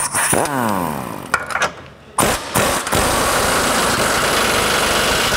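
Impact wrench tightening a lower control arm bolt: a short run at the start whose pitch falls as it winds down, then from about two seconds in a steady rapid hammering as it drives the bolt tight.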